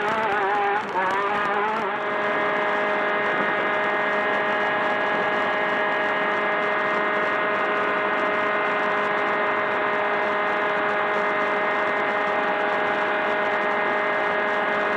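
Class 10 desert race buggy's engine running under way over a haze of wind and tyre noise. Its revs waver for the first couple of seconds, then hold at one steady pitch.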